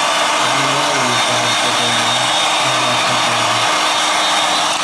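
Hot-air heat gun blowing steadily, an even rush of air, heating a phone's edges to soften the adhesive that holds the screen.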